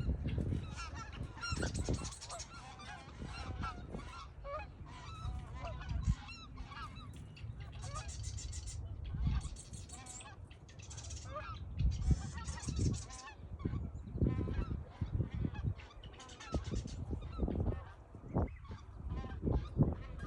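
Geese honking over and over, mixed with high buzzy trills, and broken by repeated bursts of low rumble.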